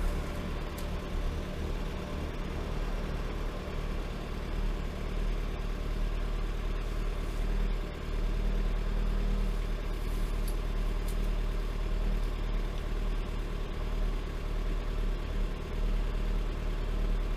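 Freshly rebuilt Lada Granta 126 engine, a 1.6-litre sixteen-valve four-cylinder, idling steadily on its first run after the overhaul; the owner says it runs hard.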